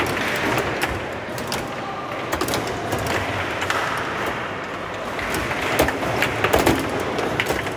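Foosball table in play: sharp irregular clicks and knocks of the ball being struck and trapped by the plastic figures and of the rods hitting the table, thickest a few seconds before the end, over a steady background hum.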